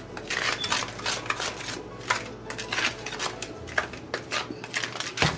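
Plastic-gloved hands mixing a dry cornstarch coating in a glass bowl: irregular soft rustling and scraping, with one sharper tap near the end.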